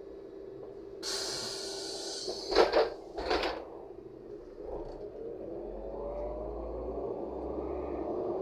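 LiAZ 5292.67 city bus's pneumatic doors closing: a sudden hiss of air about a second in, then two loud thuds as the door leaves shut. After that the engine note rises steadily in pitch as the bus pulls away from the stop.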